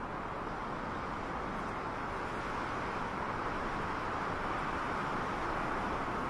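A steady rushing noise with no music, slowly growing louder.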